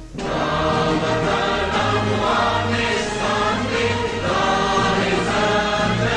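Music: a choir singing over instrumental accompaniment, beginning right after a brief drop in the sound.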